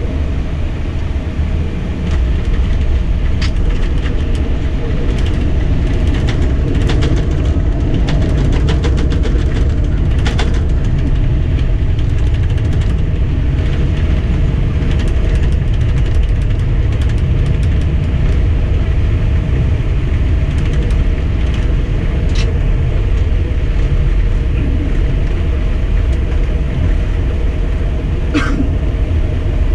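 Airbus A320 on its landing rollout heard from inside the cockpit: a steady, heavy rumble of the wheels on the runway and the engines, with scattered clicks and rattles.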